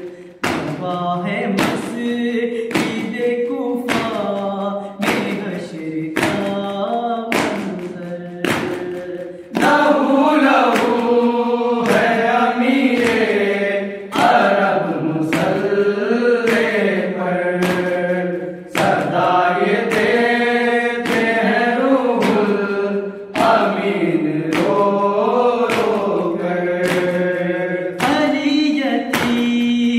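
A group of men chanting a nauha, a Shia lament, in unison, kept in time by a steady matam beat of hand strikes about once a second. The beat stands out most in the first third. About ten seconds in, the chanting grows louder and fuller.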